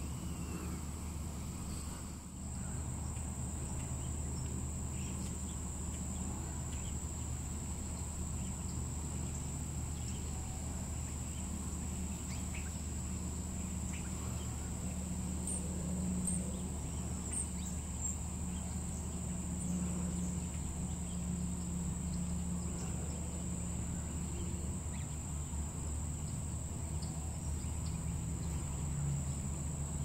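Insects singing a steady, unbroken high-pitched trill, over a low steady hum.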